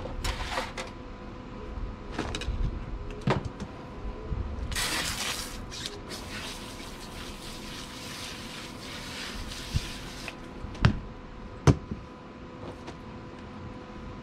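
Water from a garden hose splashing over a whole salmon as it is rinsed, a steady rush that starts about five seconds in and stops about five seconds later. A few sharp knocks come before and after it.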